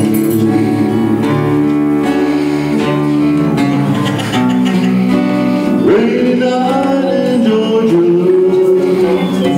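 Live acoustic duo: a man singing while playing an acoustic guitar, with an upright bass played with a bow holding long, low notes underneath.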